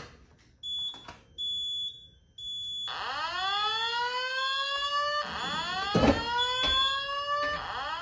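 Fire alarm system in alarm after its pull station was pulled. Three short high beeps sound, then a rising sweep tone plays through the Simplex speaker strobe, restarting about every two and a half seconds. A few sharp clicks are mixed in.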